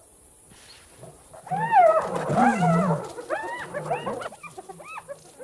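Spotted hyenas calling: a run of high yelping calls, each rising and falling in pitch, packed close together from about a second and a half in until about five seconds in.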